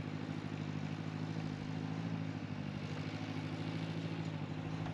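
Diesel engine of a backhoe excavator running at a steady speed, an even low drone.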